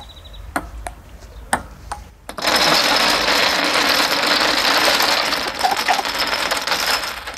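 A table tennis ball clicks off the paddles and table a few times. Then, about two seconds in, dominoes topple in a long, dense clatter across the ping pong tabletop, stopping suddenly near the end.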